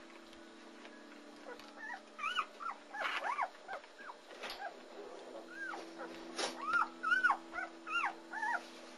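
Two-day-old German Shepherd puppies squeaking and whimpering: about a dozen short, high cries that rise and fall, starting about two seconds in and running on to near the end, over a steady low hum.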